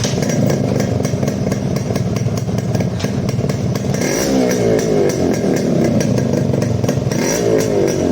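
Yamaha RX100 two-stroke single running through its stock muffler, idling steadily with two quick blips of the throttle, about four and seven seconds in, the pitch rising and falling back each time.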